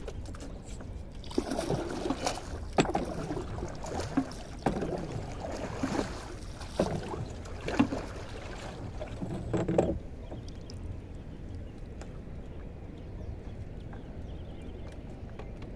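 A small wooden canoe being pushed along with a long pole: splashing water and knocks against the hull for several seconds, then only a low steady wind rumble.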